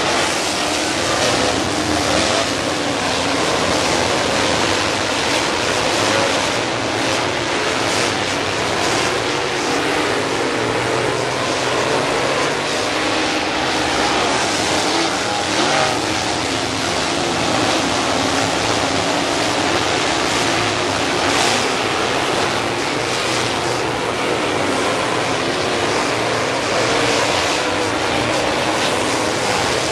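A pack of dirt Late Model race cars running their V8 engines at racing speed around a dirt oval. The engine noise is dense and steady, with no single car standing out.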